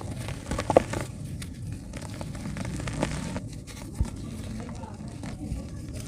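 Dry yellow dirt crumbling and breaking apart: a steady crackle with scattered crunches, the sharpest about a second in, and a low knock about four seconds in.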